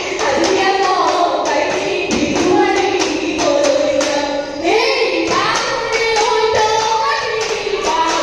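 Women singing a Jeng Bihu folk song together over a steady beat of sharp clicks, about three a second. The melody line climbs noticeably about halfway through.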